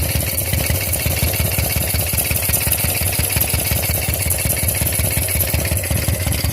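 Harley-Davidson Shovelhead V-twin idling steadily with an even, fast low beat, and a hiss alongside it. The uploader traced the hiss to a leaking pushrod tube base seal.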